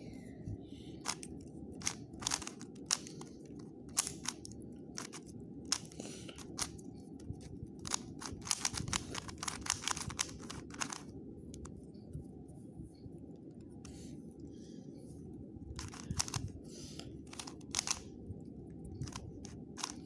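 Stickerless plastic puzzle cube being turned by hand during a solve: irregular clicks and clacks of its layers turning, coming in quick runs, over a faint steady background noise.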